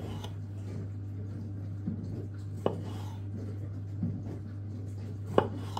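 Kitchen knife cutting cherry tomatoes in half and knocking on a wooden chopping board: a few sharp taps, two of them standing out, near the middle and near the end, over a steady low hum.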